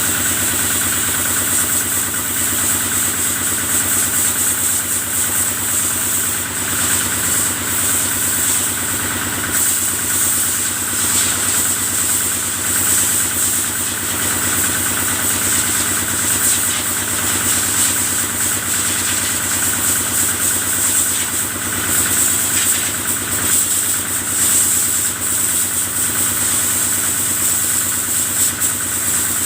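Kubota diesel engine running steadily, powering the cattle-washing machine, with a constant high hiss over the engine hum.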